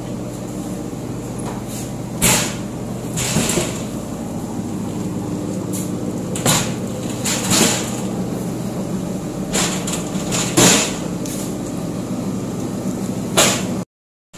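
A concrete block-making machine runs with a steady hum while wooden pallet boards clatter against it and each other as they are loaded in. There are about seven sharp knocks spread through the span.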